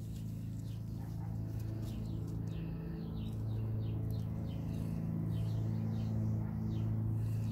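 A steady low hum with faint, short, repeated chirps of small birds over it from about two seconds in.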